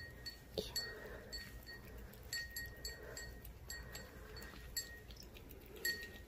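Light clinks with a brief ringing after each, about a dozen at irregular intervals, as a cat eats a lickable treat out of a small bowl.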